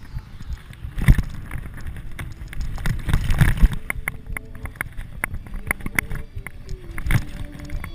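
Downhill mountain bike clattering over a rough dirt trail at speed: a constant rattle of sharp knocks and clicks from the bike, with a few heavier thuds as the wheels hit bumps.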